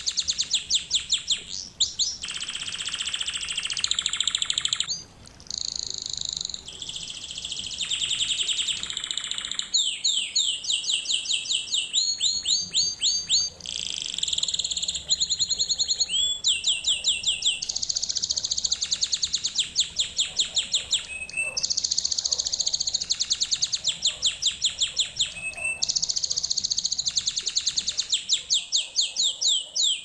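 Canary singing continuously: a long string of rapid trills and rolls, each phrase of fast repeated notes held for a second or two before the bird switches to another.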